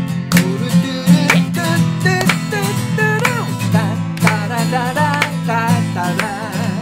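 Guitar strummed and picked: the instrumental intro of a song, played live before the singing comes in.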